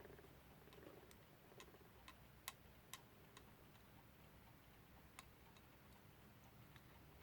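Near silence with faint, light clicks, about two a second for a stretch in the first half, then only a few scattered ones.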